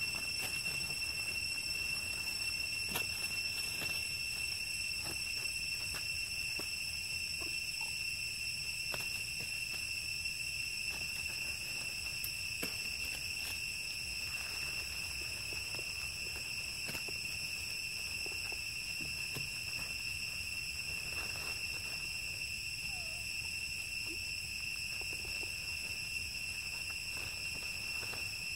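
Steady, high-pitched insect drone that holds one even pitch throughout, with faint scattered ticks and rustles of dry leaf litter over it.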